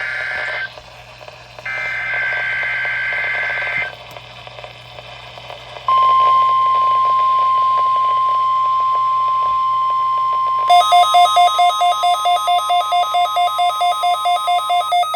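NOAA Weather Radio weekly test over a receiver's speaker: two bursts of screechy SAME header data, then the steady 1050 Hz weather alert tone. About ten seconds in, an alert receiver's alarm joins with rapid beeping that alternates between two pitches, about four beeps a second, and it carries on briefly after the tone stops.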